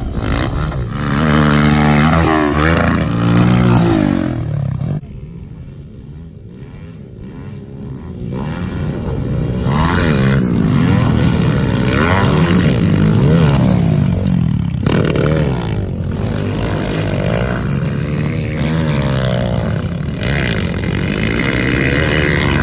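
Several small pit bike engines racing past, revving hard and shifting so the pitch climbs and falls again and again. The sound drops away suddenly about five seconds in, then builds back up as the bikes come around.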